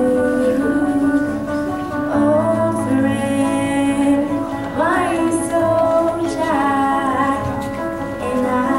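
A girl singing a slow song into a handheld microphone over an instrumental accompaniment, her voice amplified through the hall's sound system.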